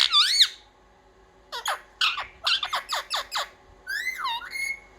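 Indian ringneck parrot calling: a short call at the start, then a run of quick downward-sweeping chirps, then a longer swooping call near the end.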